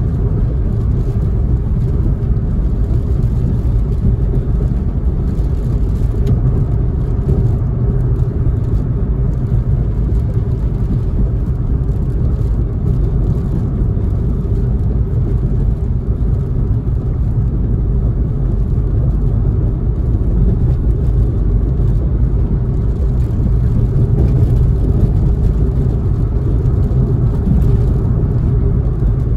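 Steady low rumble of a car driving, heard from inside the cabin: engine and tyre noise on wet pavement.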